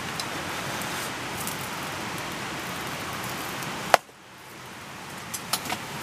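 Meat sizzling on a small charcoal shichirin grill, a steady hiss. About four seconds in, a sharp click cuts it off, then the sizzle slowly builds back with a few crackling pops near the end.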